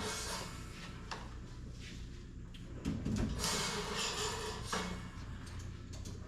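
Sliding, scraping handling noises with a few light knocks, over a steady low hum from the sawmill. This fits oak boards being moved on the mill.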